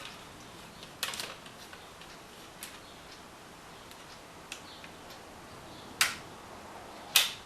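Scattered sharp plastic clicks and taps from hands working the laptop's plastic LCD frame and cable connector. There is a short cluster about a second in and two louder clicks near the end.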